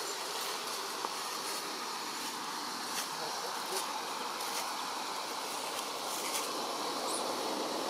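Steady outdoor background hiss with faint clicks now and then.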